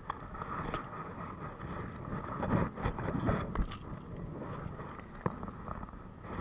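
Footsteps on a rocky path: irregular knocks and scuffs over a steady rushing noise.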